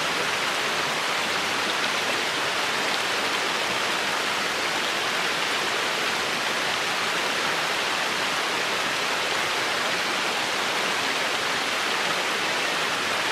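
Shallow stream running over rocks: a steady rush of flowing water.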